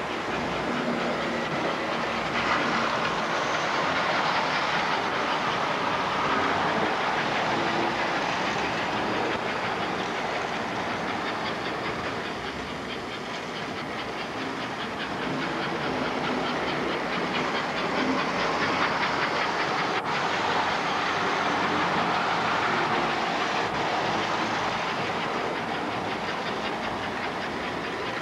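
American Flyer S-gauge model trains running on their track: a steady whir of the locomotive motors under a rapid clicking of wheels over the rail joints. It swells louder twice as trains come close.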